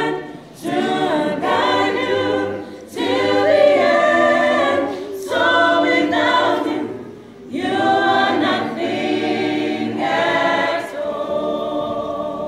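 Mixed youth choir of women and men singing unaccompanied in harmony, in phrases separated by short breath pauses. Near the end the choir holds one chord.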